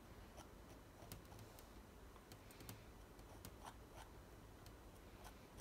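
Faint, irregular light clicks and taps of a metal palette knife dabbing and dragging thick acrylic paint on a stretched canvas.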